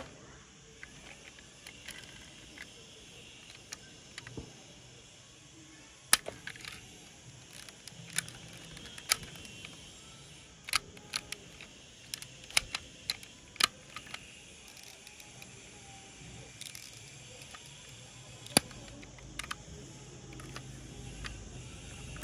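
Sharp clicks and snaps of a die-cast toy ambulance's small doors and parts being worked by hand, about a dozen scattered clicks, most in the middle and one more later on.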